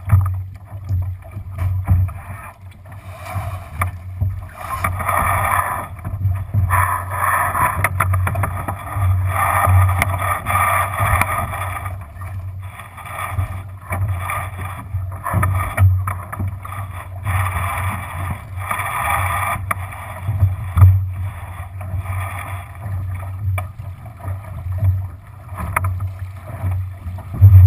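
Water rushing and slapping along the hull of a Lightning sailboat under sail, swelling and fading as the boat moves through the waves, with a low rumble and irregular thumps from the bow meeting the water; the loudest thump comes near the end.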